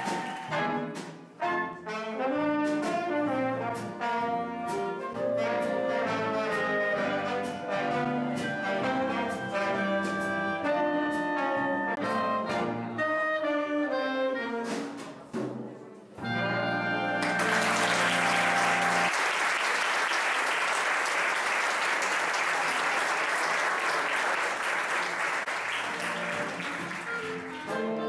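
Brass band music with trombone and saxophone, playing a lively tune for about sixteen seconds and ending on a held chord. Then comes about ten seconds of a steady wash of noise.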